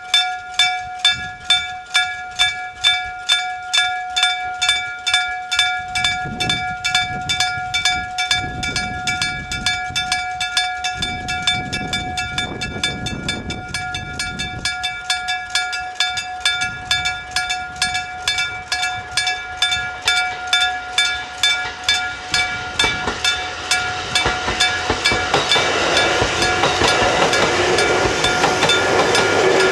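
Gong-type level crossing warning bell (electric gong) striking steadily at about two and a half strokes a second, each stroke a ringing metallic tone. Beneath it a train's rumble comes and goes, and over the last few seconds the running noise of a Sangi Railway 751 series train grows louder as it nears the crossing.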